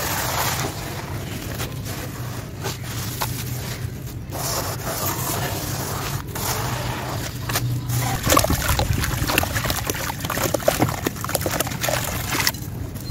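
Hands crumbling and squeezing damp sand-cement mix in a plastic tub: a gritty crunching made of many small sharp crackles, denser and louder in the second half.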